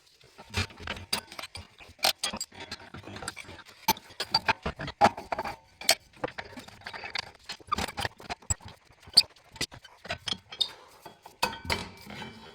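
Irregular clicks, taps and knocks, many in quick succession with short gaps, with no steady motor tone.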